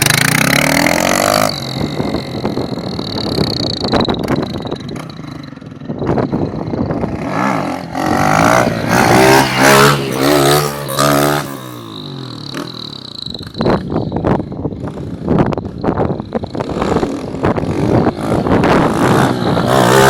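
Motorcycle with an aftermarket ML Competition exhaust accelerating hard, its revs rising and falling several times. It is loudest at the start and again around eight to eleven seconds in.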